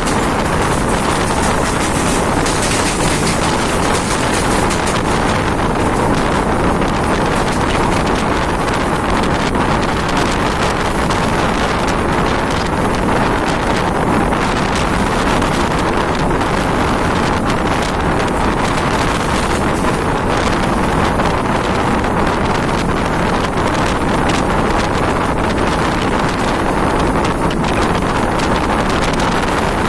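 Mumbai local train running at speed: a steady rumble of wheels on rails mixed with wind rushing over the microphone.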